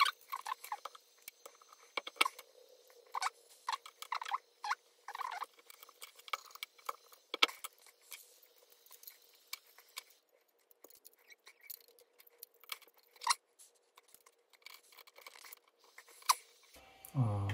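Scattered light clicks, taps and rustles of hands handling a plastic battery cell holder and cylindrical 18650 lithium-ion cells.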